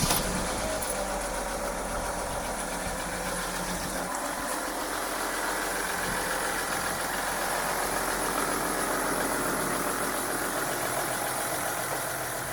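A Mercedes Sprinter van's diesel engine idling steadily just after starting. It is running smoothly on a newly changed and primed fuel filter.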